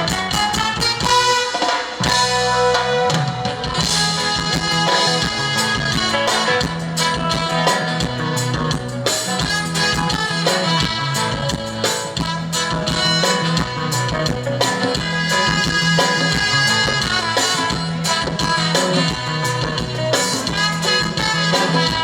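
Loud live band music with drum kit and a steady bass line, played during a sound check.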